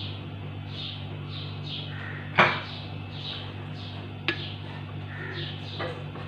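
A metal spoon clinking twice against a glass bowl while scooping chocolate sauce, the first clink about two and a half seconds in the louder, over a steady low hum.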